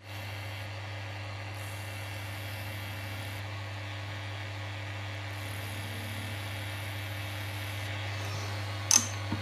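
Belt-driven watchmaking machine running with a steady low motor hum and hiss, and one sharp click near the end.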